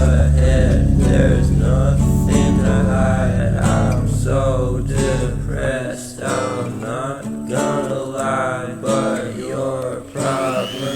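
Background music: a song with acoustic guitar and a singing voice. The deep bass drops out about six seconds in.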